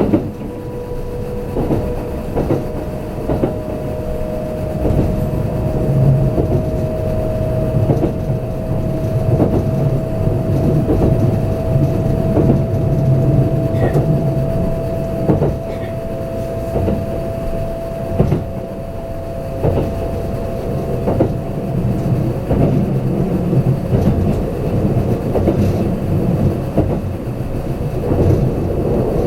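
Kintetsu limited express train running at speed, heard inside the passenger car: a steady low rumble with occasional knocks of the wheels over the rails. A steady whine creeps slightly up in pitch from about two seconds in and fades out about twenty seconds in.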